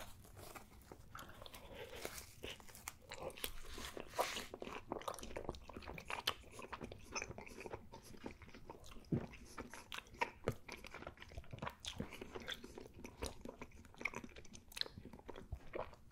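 A person biting into and chewing pepperoni pizza, heard as a dense, irregular run of crunches and wet mouth clicks.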